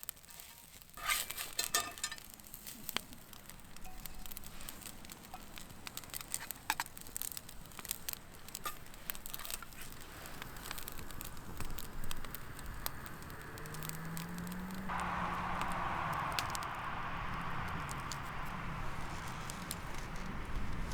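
Wood fire crackling with scattered sharp pops. About two-thirds of the way in, a steady hiss joins.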